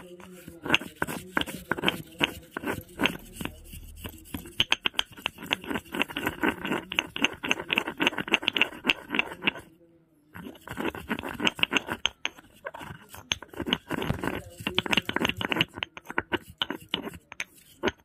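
Stone pestle grinding and pounding rose petals in a new stone mortar: rapid scraping and tapping strokes of stone on stone, with a brief pause about ten seconds in. The petals are ground to season the new mortar.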